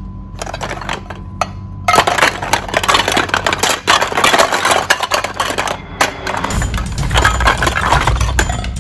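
Plastic bags of beads being handled, crinkling and rattling as a dense run of small clicks and rustles that starts about two seconds in, with a low rumble of handling noise joining near the end.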